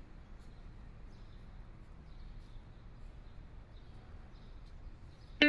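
Quiet background ambience: a faint steady low hum with a few faint scattered ticks. Music with sustained, plucked tones comes in suddenly near the end.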